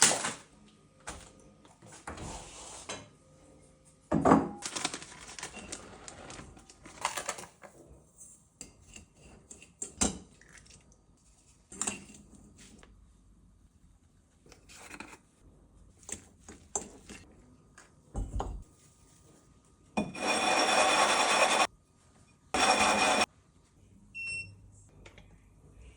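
Kitchen utensils and dishes knocking and clinking in scattered, irregular hits, with two loud bursts of rushing noise, one longer and one short, near the end.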